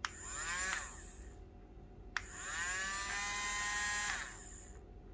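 Battery-powered electric bubble gun's small motor switched on twice. Each press of the switch gives a click, then the motor whirs, rising in pitch as it spins up. The first run lasts about a second and a half; the second starts about two seconds in and lasts about two and a half seconds.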